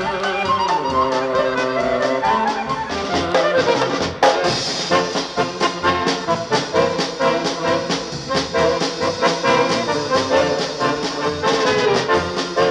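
Polka band recording: a brass section with trumpet and trombone plays the tune over a steady, quick oom-pah beat of bass and drums.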